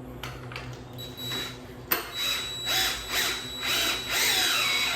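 Handheld power tool driving the 19 mm nut onto a wheel bolt, running in short pulses about two a second over a steady high motor whine, loudest just before it stops near the end.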